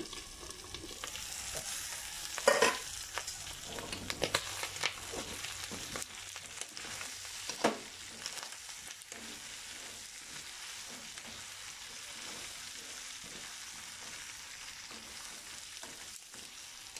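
Pork pieces frying in oil in a nonstick pan, sizzling steadily, with the liquid cooked off and the meat browning. They are stirred and turned with a metal spatula so they don't burn on the bottom. A few sharp metal clanks come in the first half, the loudest about two and a half seconds in.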